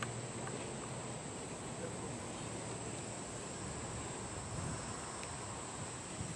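Steady outdoor ambience with a thin, continuous high-pitched insect trill over a soft even hiss, broken by a few faint small clicks.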